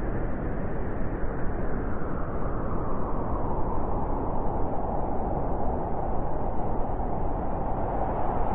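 Steady winter wind blowing, a continuous low rushing noise with deep rumble and no distinct gusts.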